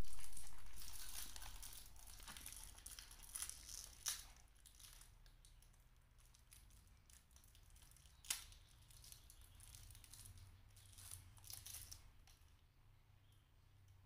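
Thin plastic wrapper on a drinking straw crinkling and tearing as it is peeled off by hand, with a few sharp crackles among the rustling; it dies down near the end.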